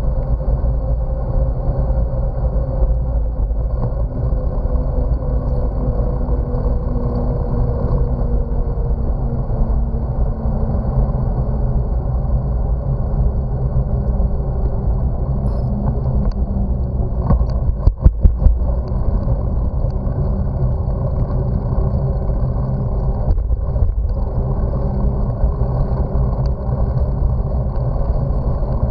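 Steady low rumble of wind buffeting the microphone and tyre noise from a bicycle rolling along a smooth cycle path. A brief clatter of sharp knocks comes about eighteen seconds in.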